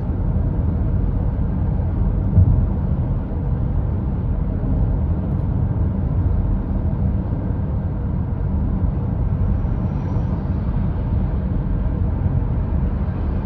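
Steady tyre and wind noise inside the cabin of a Hyundai Tucson full hybrid cruising at motorway speed, with a brief thump about two seconds in.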